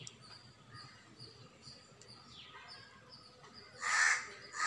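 A crow cawing twice near the end, two harsh calls of about half a second each, the second the louder.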